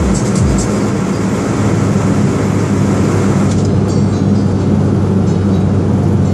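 Cabin sound of a Perodua Axia cruising steadily at highway speed: a constant engine drone with even tyre and wind noise.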